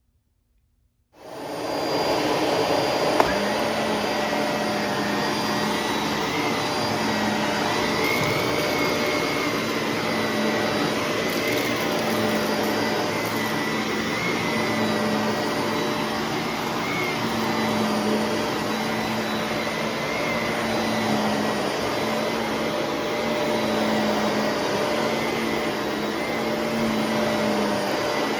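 Shark vacuum cleaner switched on about a second in, then running steadily as it vacuums, with a brief click about three seconds in.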